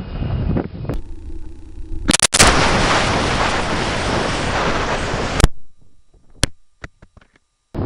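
Airsoft RPG launcher firing: a sharp bang about two seconds in, followed by about three seconds of loud rushing air noise that ends in a sharp knock, then a few faint clicks. Wind rumble on the microphone before the shot.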